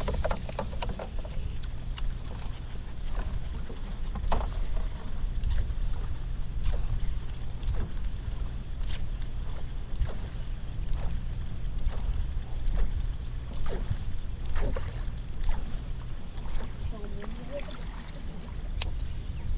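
Canoe being paddled: sharp knocks of the paddle against the hull about once a second, over a steady low rumble.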